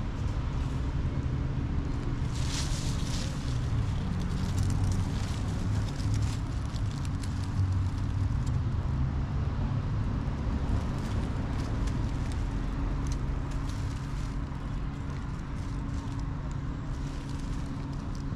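Steady low rumble of motor traffic, with brief rustling about two to three seconds in.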